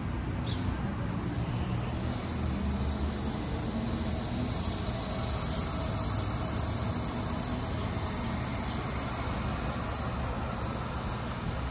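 Hydrogen dispenser pushing pressurized gas through its nozzle into a fuel-cell car's tank during a 700-bar (H70) fill: a steady high-pitched hiss over a low rumble. The hiss grows stronger about a second and a half in.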